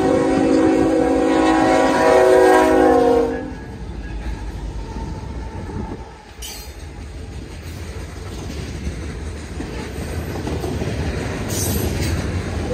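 A Union Pacific diesel locomotive's multi-chime air horn sounds one long, loud blast for the grade crossing and cuts off about three and a half seconds in. After it, the locomotives pass close by and covered hopper cars roll past with a steady clickety-clack of wheels over the rail joints.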